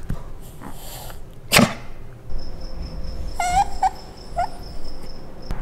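Italian greyhound whining in three short, high cries about three and a half seconds in, each rising in pitch. Earlier, about a second and a half in, comes one short sharp burst of noise, the loudest sound.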